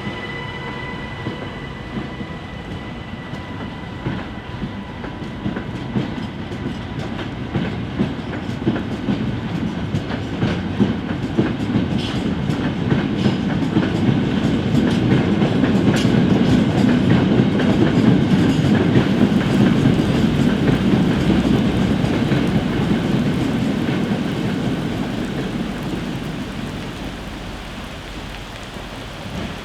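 A train passing along the track, growing louder to a peak about halfway through and then fading, with the wheels clicking rapidly over rail joints as it goes by. A faint steady high tone fades out in the first few seconds.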